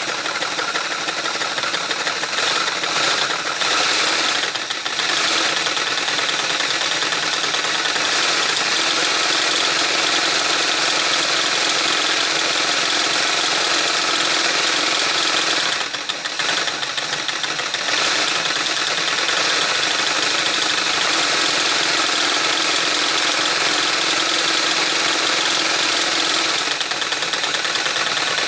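Motor-driven LEGO V-twin engine model running steadily: a continuous whirring clatter of plastic gears and pistons, with brief dips in level about 5 and 16 seconds in.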